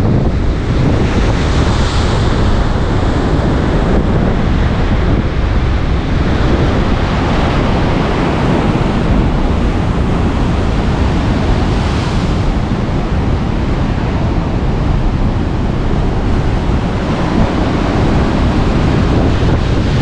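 Heavy storm surf breaking and foaming against rocky sea cliffs in a continuous rush. Strong wind buffets the microphone with a low rumble.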